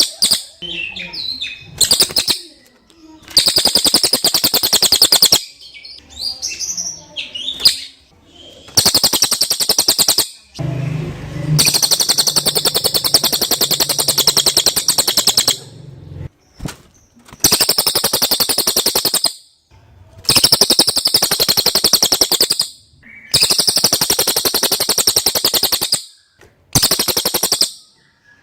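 Cililin songbird singing: rapid, high trilled phrases, each one to two seconds long, repeated again and again with short pauses between them.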